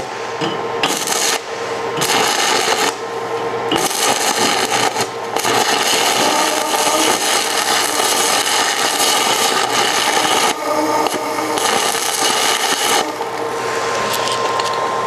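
Stick-welding arc crackling and sizzling as a flux-coated electrode burns, dropping out briefly a few times. A steady hum of shop ventilation runs underneath.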